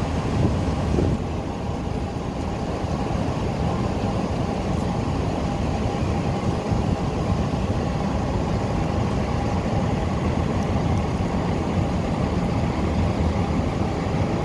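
Steady low engine drone of a car ferry under way, with a faint steady hum above it.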